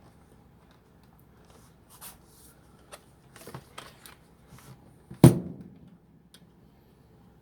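Plastic laptop screen housing being handled and fitted, with light clicks and rustles, then one loud knock about five seconds in that rings briefly.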